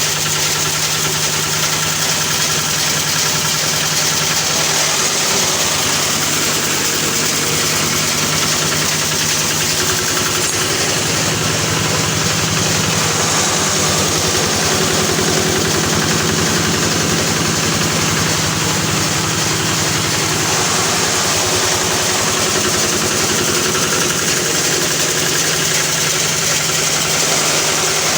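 Grass chopper machine running steadily: a continuous motor hum with a broad whirring rush over it, its note shifting slightly about halfway through.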